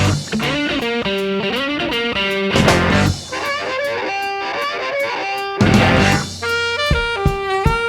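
Rock band playing an instrumental passage: electric guitar notes over drum hits.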